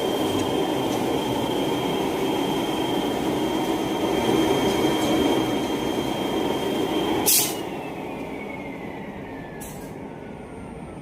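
Duct fabrication machine running with a steady rumble and a high whine. About seven seconds in it is switched off with a click, and its whine falls away slowly as the machine winds down.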